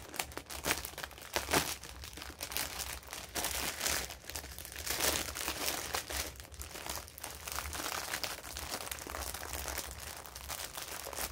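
Small resealable plastic baggies crinkling and rustling as they are handled and sorted through, with many small crackles throughout.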